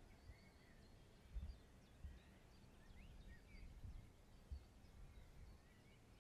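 Near silence, with faint scattered bird chirps and a few soft low thumps.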